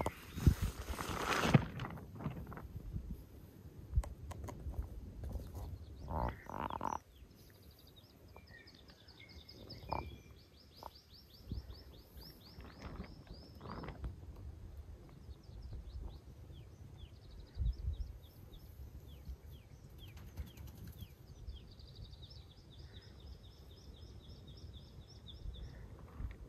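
A small songbird singing: repeated fast trills of short, high, falling notes, over faint low rustles and thumps. A brief burst of rustling comes at the very start.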